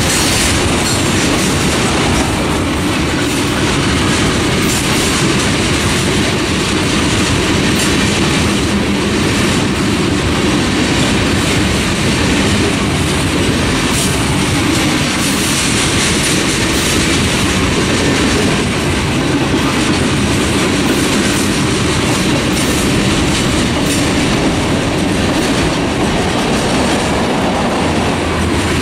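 Freight train cars rolling past: a steady, loud rumble of steel wheels on rail, with scattered clicks as the wheels cross rail joints.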